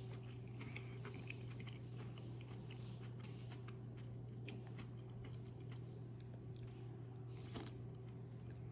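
A person chewing malatang, with many small, soft mouth clicks and crunches, over a steady low hum.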